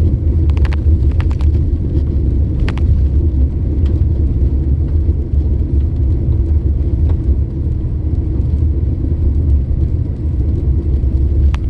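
Steady low rumble of a car driving along a road, heard from inside the cabin, with a few light clicks.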